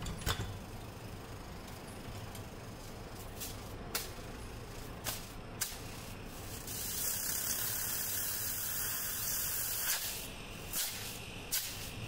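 LG inverter refrigerator compressor running with a low steady hum. It is driven by a control board whose six-blink compressor-start fault has been cleared by replacing an IC. A few light clicks, and a hissing rustle for about three seconds from around seven seconds in.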